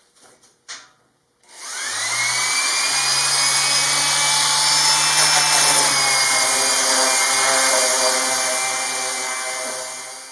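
Electric orbital sander (Jellas) switched on about a second and a half in, its motor whine rising as it spins up, then running steadily while sanding plywood parts, fading just before the end.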